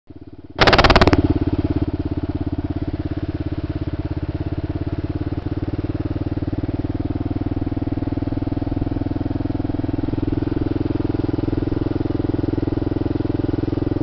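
Sport motorcycle engine running at a steady speed, heard from the rider's seat, its firing pulses even throughout. A brief loud burst of noise comes about half a second in.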